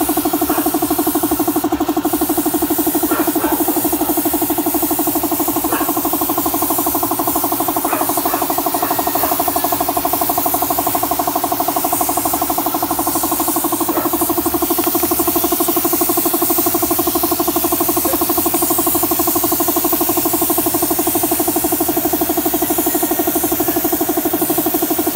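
Air compressor running steadily with a fast, even pulsing, under the high hiss of a gravity-feed spray gun spraying the finish coat.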